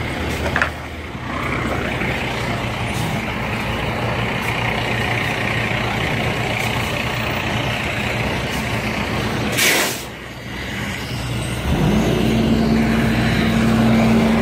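A truck engine idling steadily, with a short hiss just before ten seconds in. About twelve seconds in, a louder, steadier engine hum takes over.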